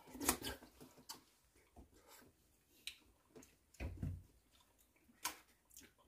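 Faint clicks of a spoon and chopsticks against bowls as two people eat porridge, a few scattered taps, with one softer, lower knock about four seconds in.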